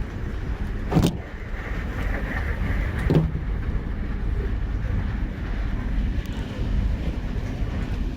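JR Hokkaido Rapid Airport electric train running, a steady low rumble heard inside the carriage, with two sharp knocks about two seconds apart.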